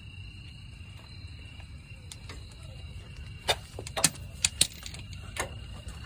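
A handful of sharp, irregularly spaced metallic clicks from a ratchet and socket being worked on a front differential mount bolt, bunched together a little past halfway, over a low steady rumble.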